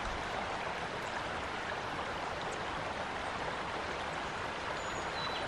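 Creek water flowing steadily over a shallow riffle, an even running-water noise.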